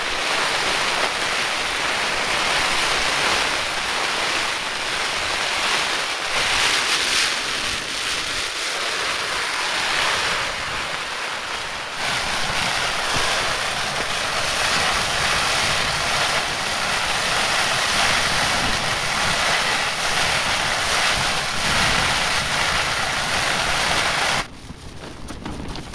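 Wind-driven rain and gusts beating on the OEX Hyena II tent's fabric, heard from inside, with wind buffeting the microphone: a loud, steady rush that falls away suddenly about a second and a half before the end.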